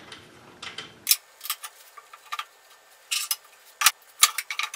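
Scattered sharp clicks and light knocks, about eight over a few seconds, as pieces of MDF are set down and shifted on a band saw's metal table.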